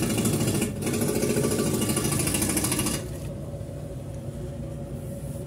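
Loud, rapid mechanical rattle for about three seconds, broken briefly near the start, then dropping to a lower steady hum.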